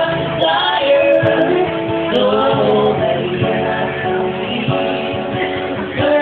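A duo singing a country ballad live over instrumental backing, holding long sung notes.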